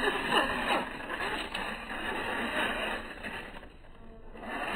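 Slowed-down sound of a 1/16-scale RC rock bouncer's electric drivetrain and tyres working over rocks. It dips quieter for a moment about three-quarters of the way through.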